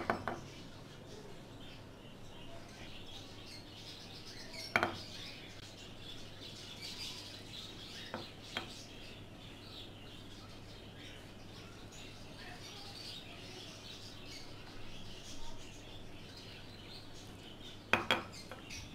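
A hand mixing flour and warm water into dough in a bowl: quiet rubbing and squishing, with a few sharp knocks against the bowl or jug, one at the start, one about five seconds in, two light ones around eight seconds, and a cluster near the end.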